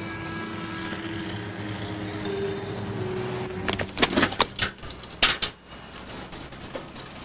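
Steady hum of city street traffic, then about four seconds in a quick run of sharp clicks and clacks from a public payphone's handset and mechanism as it is picked up and worked, with a few more clicks near the end.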